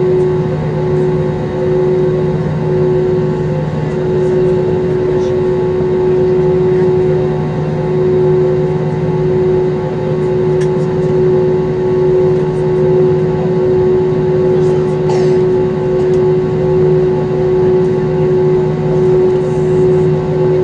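Airbus A320 airliner's jet engines running at taxi power, heard inside the cabin as a steady drone with a humming tone over it.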